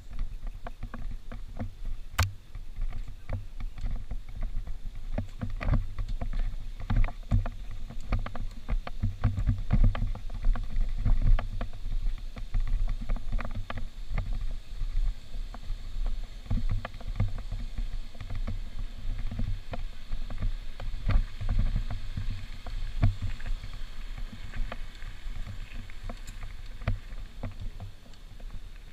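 Water splashing and sloshing, with irregular knocks and a steady low rumble.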